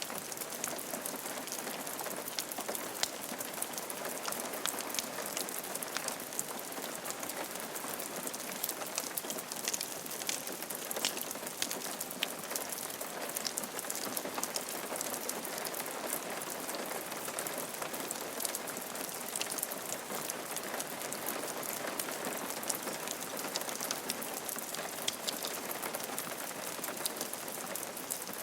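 Steady rain falling on a roof: an even hiss with many distinct drops ticking throughout.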